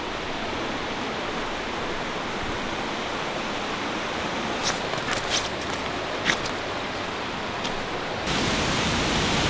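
Steady rush of fast-flowing water, stepping up suddenly to a louder, fuller rush about eight seconds in. A few faint clicks sound near the middle.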